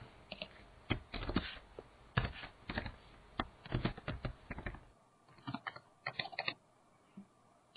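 Typing on a computer keyboard: irregular keystroke clicks that stop about a second before the end.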